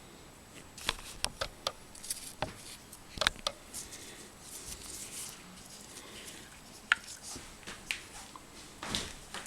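A scatter of short, sharp clicks and light rattles from handling small hard objects, most of them in the first few seconds and a few more near the end.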